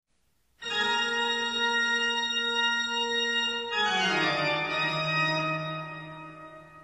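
Organ-like electronic keyboard chord that comes in about half a second in and is held, then slides down in pitch to a lower chord that fades away: a short musical sting.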